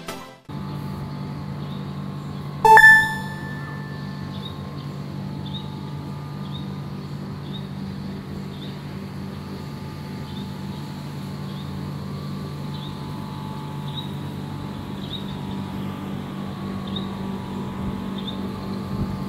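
A motor running steadily with a low, even hum. A single loud tone rings out about three seconds in and dies away over a second. Faint short chirps repeat under a second apart throughout.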